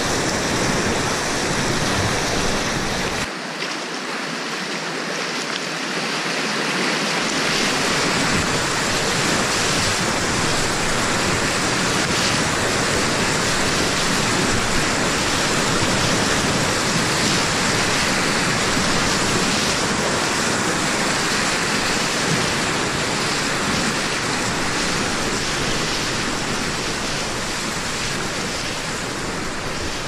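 Whitewater of a river in flood rushing and churning in big waves around a kayak, heard from a camera on the boat, with a steady loud wash of water and spray.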